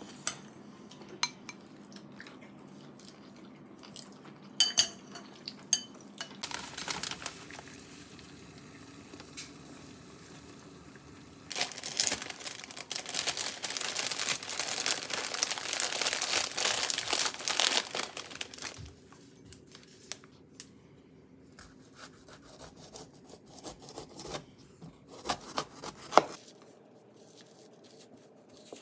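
A spoon clinks a few times against a ceramic bowl. Then, for about seven seconds around the middle, a plastic produce bag crinkles as it is handled. Near the end a metal spoon scrapes the seeds out of a halved bitter melon, with a single sharp knock.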